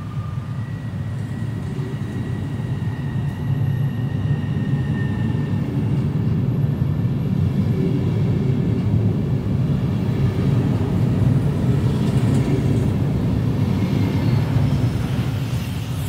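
Stadler KISS (ESh2 Eurasia) double-deck electric train pulling out of the station and running past, its wheels and running gear rumbling as the carriages go by. The rumble grows louder over the first few seconds and then holds, with a faint whine above it.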